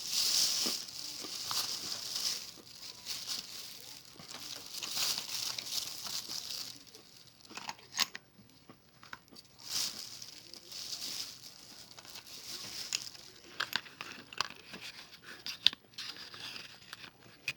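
Crinkling and rustling in uneven swells, with scattered sharp clicks and crunches.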